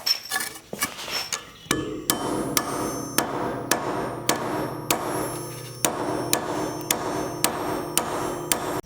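Repeated hammer blows, about two a second, with a steady hum underneath.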